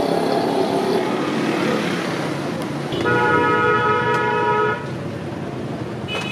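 A vehicle horn sounding one held note for about two seconds over steady street traffic noise, followed near the end by a brief higher beep.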